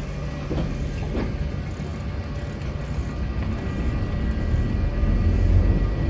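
Sóller tram's wooden car rolling past close by on its rails: a low rumble that grows louder over the last couple of seconds.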